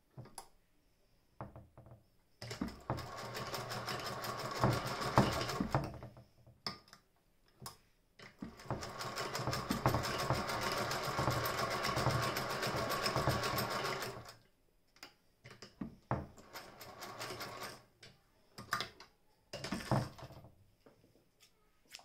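Singer 201K hand-crank sewing machine stitching: two runs of fast, even mechanical clatter lasting several seconds each, then a short run and scattered light clicks as the crank stops and starts.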